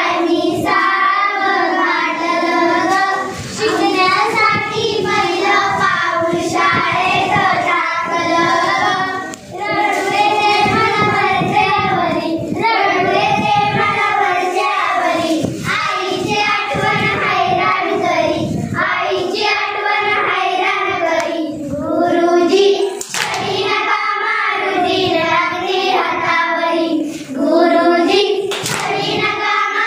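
A group of children singing a song together, with hand claps among the voices.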